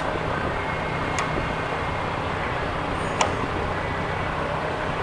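Steady background noise with a low hum, broken by a few short clicks, the loudest about three seconds in.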